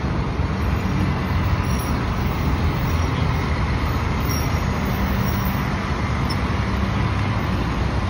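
A flatbed tow truck's engine running close by as the truck moves off slowly, over a steady rush of road traffic.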